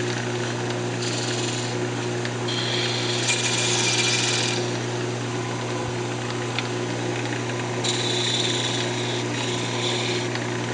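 Wood lathe running with a steady hum while a parting tool, used like a skew, cuts the spinning cocobolo duck call. The cuts come in three spells of high hissing: about a second in, for about two seconds from the 2.5-second mark, and again near the end.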